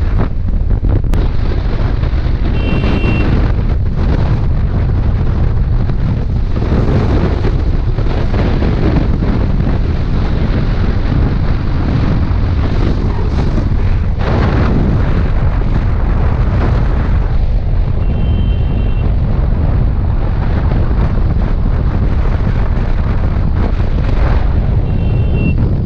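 Loud wind buffeting the microphone of an action camera held out on a moving motorcycle: a constant low rumble that drowns out the engine.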